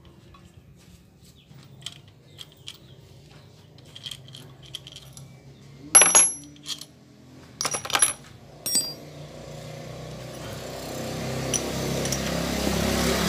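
Small metal engine parts clicking and clinking while being handled and set down, with a few sharp ringing metal strikes around the middle. After that a rushing noise swells steadily toward the end.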